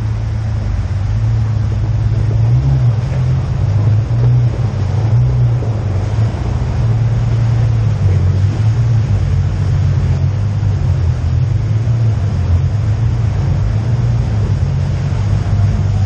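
Steady low drone of a 4x4's engine and drivetrain running at low speed as it drives into a tunnel.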